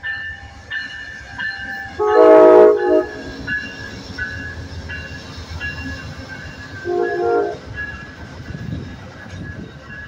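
Amtrak P42DC locomotive's air horn sounding two blasts, a loud one of about a second about two seconds in and a shorter one about seven seconds in. The passing train's low rumble and wheel clatter run underneath.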